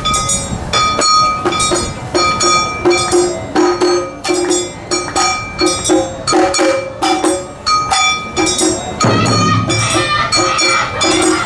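Live Awa-odori dance music: a steady beat of drums and a struck metal bell under a high melody line. A deeper drum layer comes in about nine seconds in.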